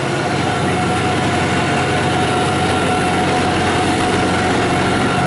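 John Deere 5075E tractor's diesel engine running steadily, with a steady high whine over its low hum.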